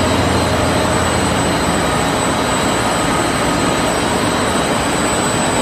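Open-width washing machine for knit fabric running: a loud, steady mechanical noise with a thin high whine over it.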